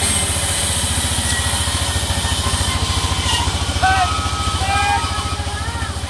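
Sawmill engine running steadily with a fast, even low pulse, driving the saw as a mango-wood plank is fed along the bench. Short high gliding calls come in during the second half.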